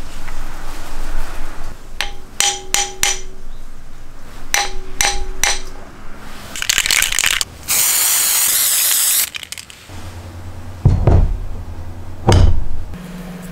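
Steel hose clamp and spanner clinking against metal: two quick runs of four ringing clicks. These are followed by a few seconds of loud hissing, then a low hum with two heavy thumps near the end.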